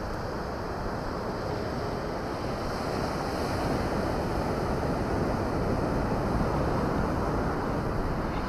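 Wind blowing over the microphone with surf on a beach behind it: a steady rushing noise that swells a little in the middle.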